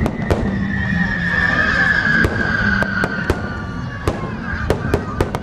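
Fireworks going off in a string of sharp bangs and pops, about a dozen in all. A long whistle slowly falls in pitch over the first three seconds or so.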